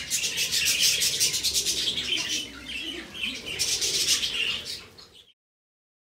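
A flock of budgerigars chattering: a dense run of rapid chirps and warbles that cuts off suddenly about five seconds in.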